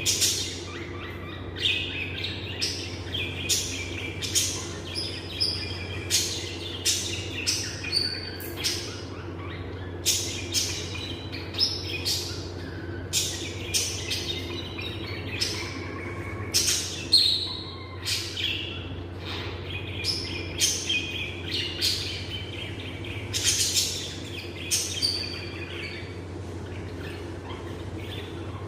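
Pet lovebirds chirping: short, sharp, shrill calls repeating about once or twice a second, over a steady low hum.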